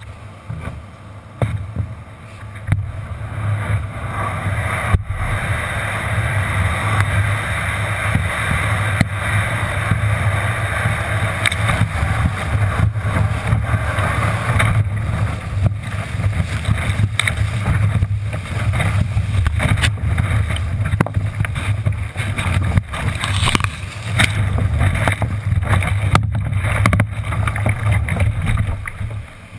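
Wind rumbling on a GoPro's microphone on the bow of an Ocean Kayak Frenzy sit-on-top kayak, with water rushing and splashing against the plastic hull in the surf and many short sharp knocks and slaps. A little quieter for the first couple of seconds.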